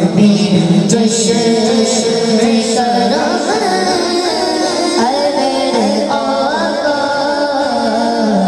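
A boy reciting an Urdu naat, singing solo into a microphone through a PA system with a melismatic, ornamented melody over a steady low drone.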